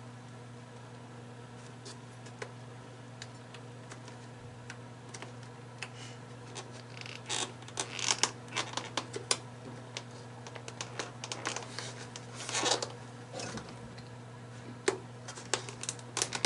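Plastic cling wrap being peeled off a plastic takeout tray: crinkling and clicking in short clusters starting about halfway through, over a faint steady hum.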